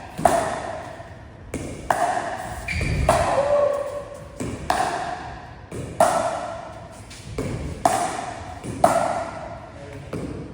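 Pickleball paddles striking the plastic ball back and forth in a drill rally. There are about seven sharp pocks, roughly one every second to second and a half, each ringing briefly.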